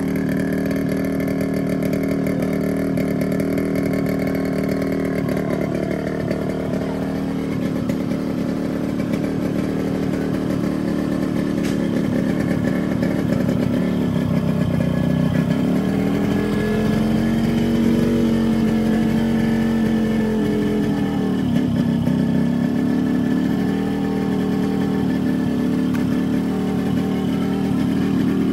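Yamaha RX100's two-stroke single-cylinder engine running steadily, revving up and easing back down about halfway through. It is running on a stand-in ignition coil from an old-model Splendor, on which it is not making its full power.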